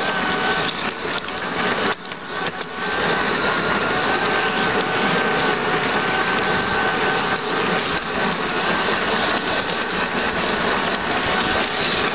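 Large-scale garden model train running, heard close from on board: a steady whine from its electric motor and gearing over the rumble and rattle of wheels on the track. It dips briefly about two seconds in.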